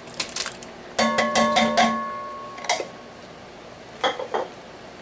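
A metal can knocked against the rim of a cooking pot while it is emptied. About a second in comes a quick run of sharp knocks with a metallic ringing that fades over about a second, followed by a single knock and then a few more knocks near the end.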